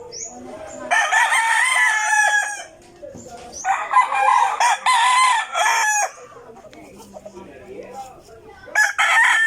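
Roosters crowing: three long crows, the third starting near the end.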